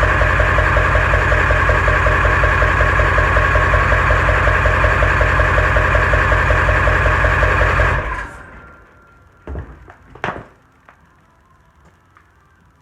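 1996 Ford 7.3 Powerstroke V8 turbodiesel idling steadily through a new 3-inch downpipe, then stopping about eight seconds in. A couple of short knocks follow.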